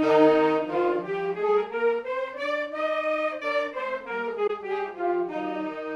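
Saxophones played together in unison, moving in steps like a scale: the line rises for about three seconds and then comes back down.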